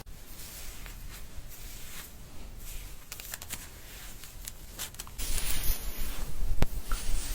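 Fingers scrubbing hair and scalp during a shampoo: a soft, scratchy rustling with small clicks. About five seconds in, a louder rushing hiss comes in.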